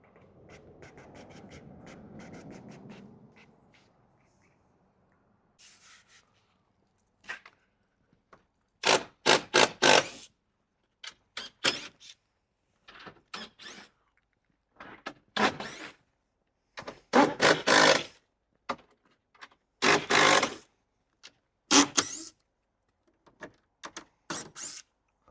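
Work noise from taking apart ATV shipping crates: sharp clanks, knocks and short bursts coming in quick clusters, the loudest from about nine seconds in. A low, even rumble comes before them.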